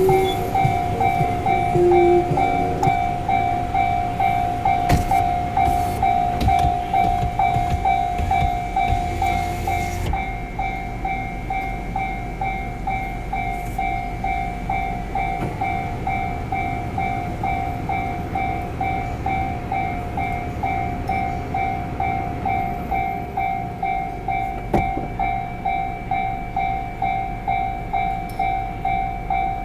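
Japanese railway level-crossing alarm ringing its steady electronic ding about twice a second while the crossing is closed. A train passes during the first ten seconds or so, its rumble then fading out while the alarm keeps ringing.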